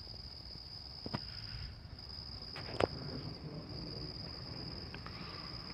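Crickets trilling steadily in one continuous high note. Two short sharp clicks cut through, about a second in and near the three-second mark.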